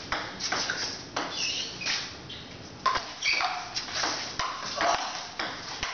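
Table tennis ball knocked back and forth in a rally: sharp clicks of the ball off rubber paddles and bounces on the table, about two a second.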